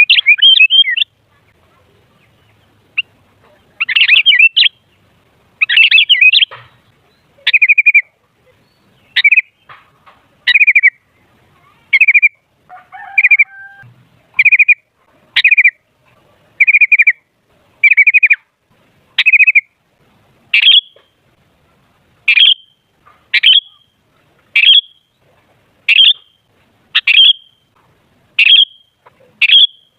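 Sooty-headed bulbul calling: a few quick chattering phrases in the first seconds, then short, loud calls repeated about every second and a half.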